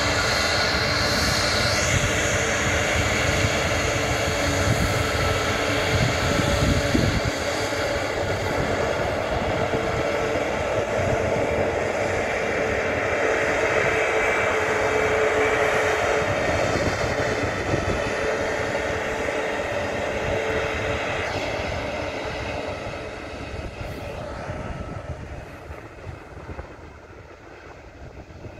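Airbus A320 twin turbofan engines running with a steady whine as the jet taxis past. The sound fades over the last several seconds as the aircraft turns away down the runway.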